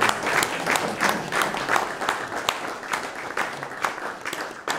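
A small audience applauding, with dense, irregular clapping that eases off near the end.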